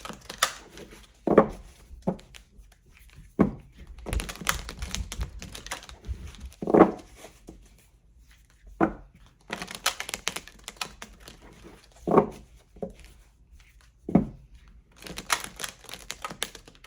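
A deck of tarot cards being shuffled by hand: stretches of rapid papery clatter from the cards, broken by a handful of dull thumps as the deck is knocked or set down on the table.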